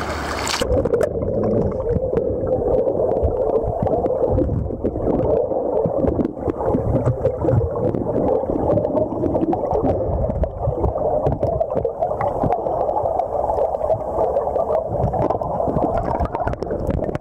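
River water heard with the microphone under the surface: muffled, steady rushing and gurgling with many small crackles and clicks, starting abruptly about a second in when the camera goes under.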